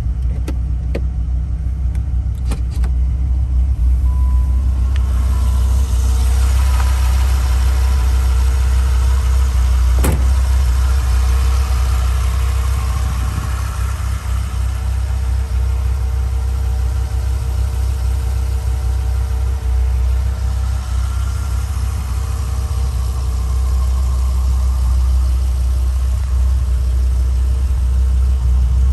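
2001 Dodge Viper GTS ACR's 8.0-litre V10 idling steadily, its sound concentrated very low. It is heard from inside the cabin at first, then from outside beside the car from about five seconds in. A few light clicks come in the first three seconds, and one sharp click about ten seconds in.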